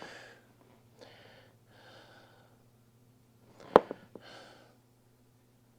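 A person breathing heavily in several soft, breathy puffs while working, with one sharp metallic click a little under four seconds in, over a steady low electrical hum.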